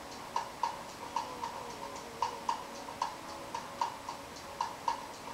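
Small tobacco pipe being puffed: quick soft lip pops on the stem, about three to four a second at a slightly uneven pace.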